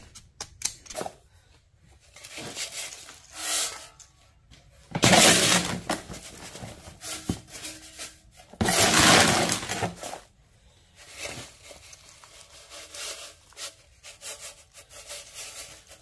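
Workshop handling noises: scattered clicks and knocks, with two louder scraping or rustling sounds, each over a second long, about five and nine seconds in.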